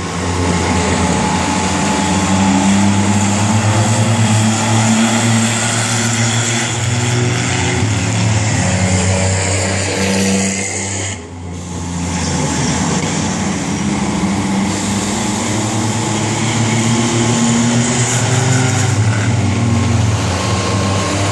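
V6 banger race cars' engines running at racing speed around the oval, loud and steady, dipping briefly about halfway through before building again.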